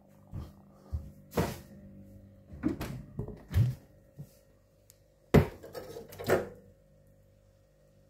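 A Candy fridge freezer's compressor hums steadily, running without cycling off, while its doors, compartments and an ice cube tray are handled with a series of knocks and clunks, the two loudest about five and a half and six and a half seconds in.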